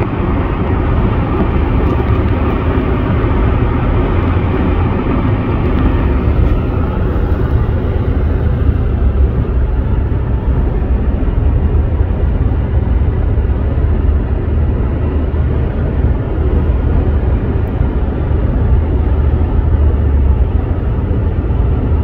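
Steady road noise of a car cruising at highway speed: tyre and wind noise, mostly a deep low rumble that never lets up.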